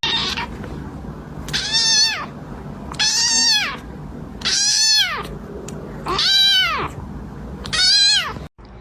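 A cat meowing five times in long, drawn-out calls, each rising then falling in pitch, about a second and a half apart.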